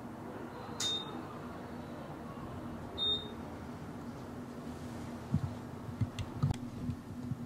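Two short, high-pitched referee whistle blasts about two seconds apart, stopping play. Several dull low thumps follow near the end, over a faint steady low hum.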